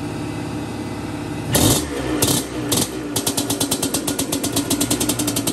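Yamaha Tri-Z 250 two-stroke single-cylinder engine running, with a sharp throttle rev about a second and a half in and two shorter blips after it. It then settles into a fast, even popping idle.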